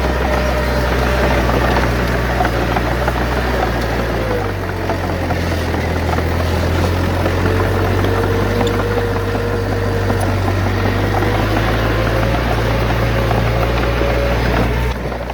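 Heavy diesel engine of a bulldozer running steadily under work, its note shifting about four seconds in.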